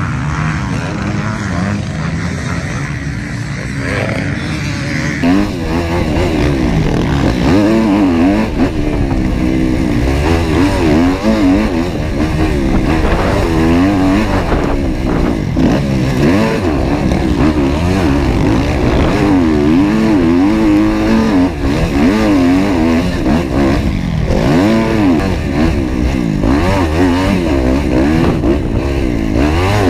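Motocross dirt bikes running on the track for the first five seconds. Then one dirt bike's engine is heard close up from an onboard camera, revving hard with its pitch rising and falling over and over as it accelerates and shifts along the track.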